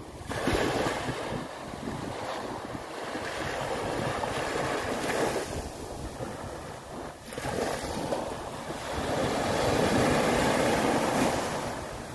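Sea waves breaking and washing onto the shore, rising and falling in several swells, the loudest near the end.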